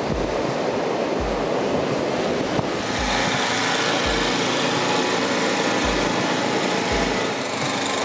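Blizzard wind blowing hard: a steady loud rush, hissier from about three seconds in, with irregular low thumps of gusts buffeting the microphone.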